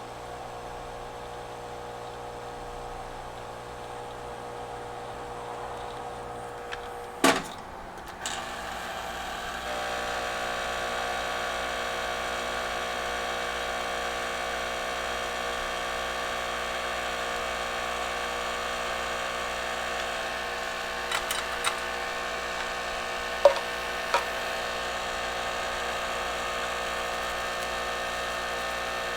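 A small electric fan motor whirring steadily. After a sharp click about seven seconds in, the whir gets louder with a higher whine from about ten seconds on, and a few light clicks come near the end.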